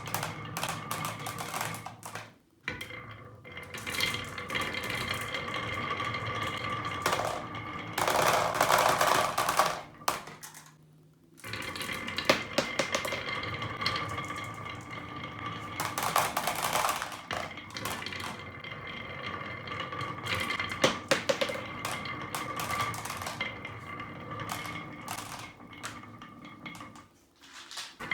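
Marbles rolling and clattering down a toy marble run track: a dense run of small clicks and rattles with a steady ringing tone underneath, stopping briefly about two and a half seconds in, again around eleven seconds, and once more near the end.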